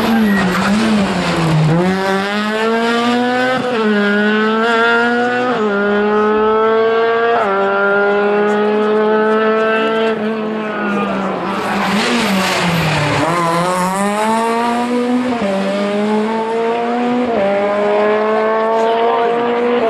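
Two rally cars, a Ford Fiesta and then a Škoda Fabia, accelerating hard through the gears. Each engine climbs in pitch and drops at an upshift roughly every two seconds. The second car's run begins after a brief dip a little past the middle.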